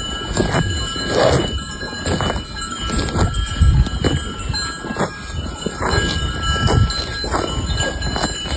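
Cowbells on grazing cattle clanking irregularly, with ringing tones that hang on between the strokes.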